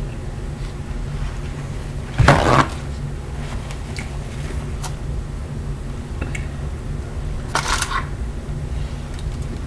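Handling and eating sounds at a meal table: a loud, short rustle about two seconds in and a smaller one near eight seconds, with light clicks between, over a steady low hum.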